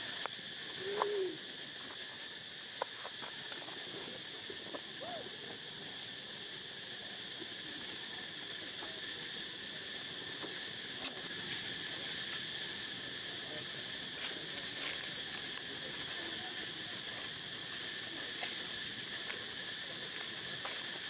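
Steady insect chorus, a continuous high buzz at two pitches. Scattered sharp clicks and rustles of dry leaves sound over it, with a short low hoot-like call about a second in.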